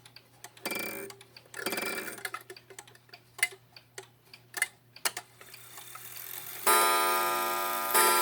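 Waltham 31-day chiming wall clock movement ticking, with two short mechanical whirring runs as the striking train is released. About six and a half seconds in, a loud chime strike rings out and slowly fades, with a second strike near the end.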